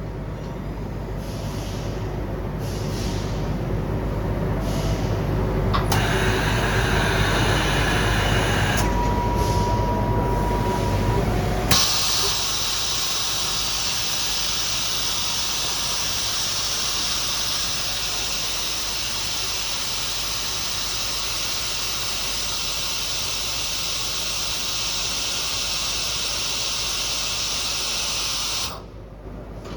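Printed-circuit-board final-cleaning machine running: a low machine rumble that grows for about twelve seconds, with a steady high tone for about two seconds along the way. Then it switches suddenly to a steady loud hiss of the cleaning cycle, which cuts off abruptly shortly before the end.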